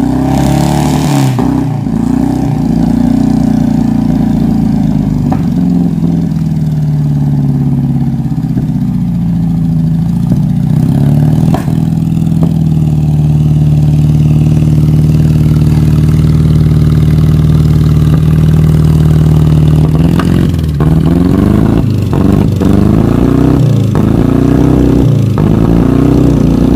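Vehicle engine running with its revs rising and falling, holding a steady pitch for several seconds midway, then varying again with a few knocks near the end.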